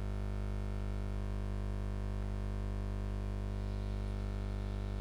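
Steady electrical mains hum: an unchanging buzz with a stack of overtones and no other sound.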